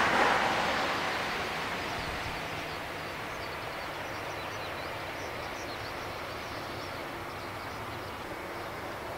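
The jet engines of an Airbus A340-300 running as it rolls along the ground. A broad rushing roar is loudest at the start and fades over the first couple of seconds to a steady, quieter jet hum.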